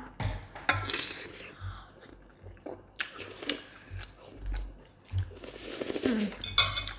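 Jajangmyeon (black-bean noodles) slurped and chewed close to the microphone: three or four separate slurps with soft chewing clicks between them.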